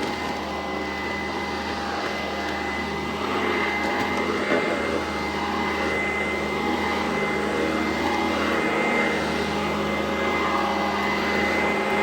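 Sanitaire SC899 commercial upright vacuum cleaner running steadily, its motor giving a constant high whine over a broad rushing hiss.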